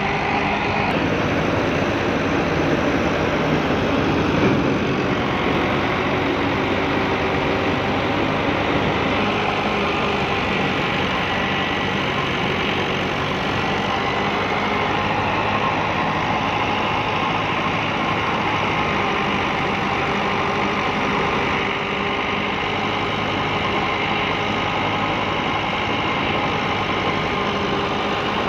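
Massey Ferguson 265 tractor's three-cylinder diesel engine running steadily under load, driving a wheat thresher through its PTO shaft, with the thresher's drum and fan running as wheat sheaves are fed in. The sound holds constant throughout.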